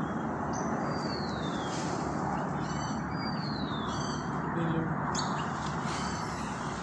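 High whistled animal calls, each sliding down in pitch, about three times, with a few short chirps in the middle. They sound over a steady outdoor background hiss.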